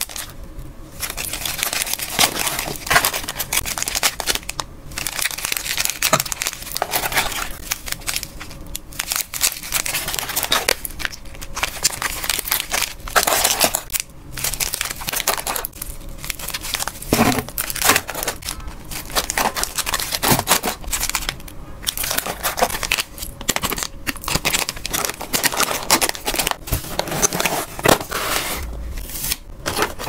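Clear plastic zip-lock bags of small pet treats crinkling and rustling as they are handled and packed close to the microphone, with a few short pauses between bouts of handling.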